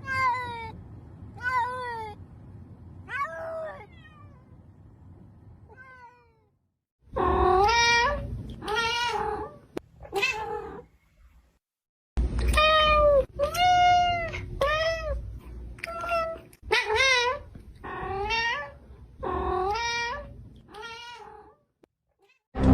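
Domestic cats meowing over and over: a long run of separate meows, each rising and falling in pitch, some spaced out and some coming in quick succession.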